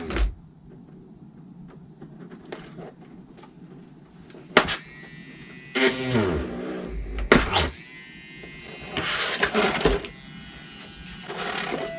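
Mini handheld electric drill buzzing as its tiny twist bit drills a clear plastic RC car body shell; about six seconds in, its pitch falls as the motor spins down. Sharp knocks and clicks of handling stand out, the loudest right at the start.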